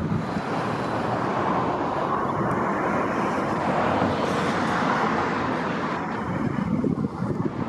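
Traffic noise: a steady rushing of passing vehicles that swells through the middle and eases off near the end.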